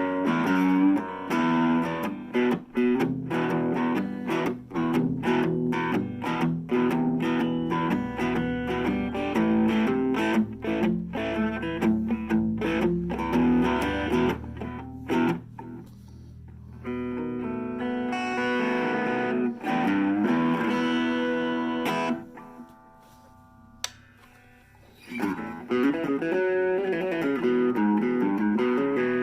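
Harley Benton CST24-HB electric guitar played through a Blackstar Fly 3 mini amp: a run of quick picked single notes, then a held chord left to ring. A short near-quiet pause with a single click follows, then more picked notes.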